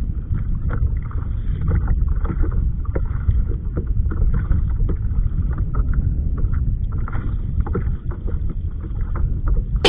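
Wind rumbling on the microphone while water laps and slaps irregularly against a kayak's hull.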